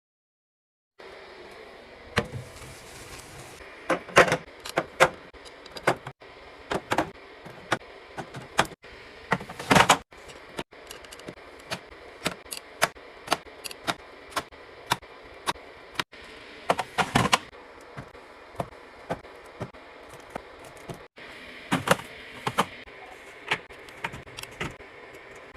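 Irregular sharp clicks and knocks of containers and packaged items being handled and set down while restocking a fridge, over a steady faint hiss, with several abrupt cuts between clips.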